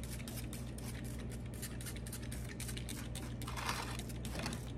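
Trigger spray bottle misting a freshly potted aloe pup: a quick run of short spray bursts as the trigger is pumped, over a low steady hum.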